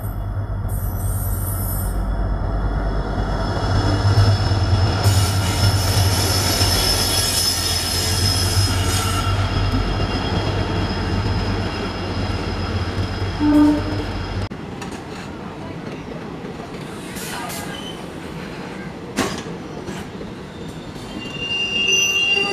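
Diesel locomotive running past at speed with a heavy engine drone, followed by its passenger coaches rolling by with wheel noise and clicks over the rail joints. The deep engine drone drops away about two-thirds of the way through, leaving the lighter clatter of the coaches.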